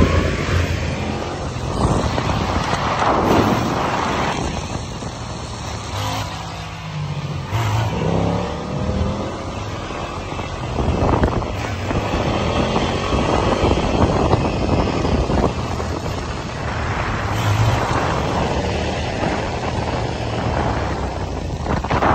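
Sport motorcycle engines at speed, revving up again and again through the gears, with wind rushing over the microphone. The bikes are a 2022 Yamaha R7 being ridden on its rear wheel and the motorcycle that follows it.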